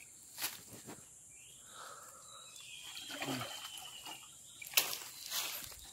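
Hands splashing and sloshing in shallow muddy water while groping for fish, with a few sharp knocks.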